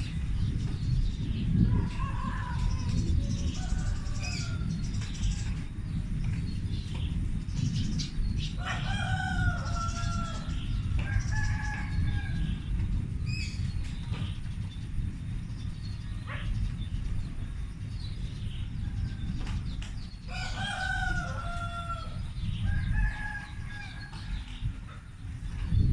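A low, continuous rumble like distant thunder, of unexplained origin. A rooster crows twice, about nine seconds in and again about twenty seconds in, while small birds chirp.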